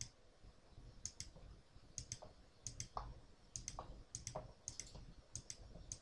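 Faint clicking from a computer mouse and the buttons of an Akai APC40 controller as MIDI mappings are assigned one by one. The sharp clicks come mostly in close pairs, about one pair every half second to a second.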